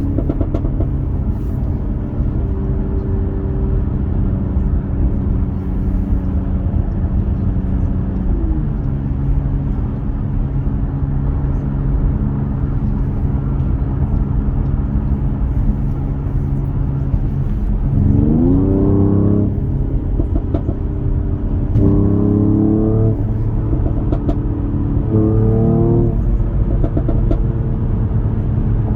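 Mercedes-AMG E53's turbocharged inline-six running at steady low revs, its note dropping a few seconds in and holding. In the last third the revs climb hard three times in quick succession as the car accelerates, each climb breaking off sharply.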